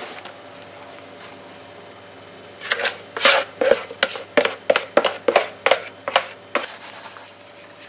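Wooden spatula scraping thick chocolate cake batter out of a plastic measuring jug, a quick run of about a dozen short scrapes, about three a second, starting a few seconds in.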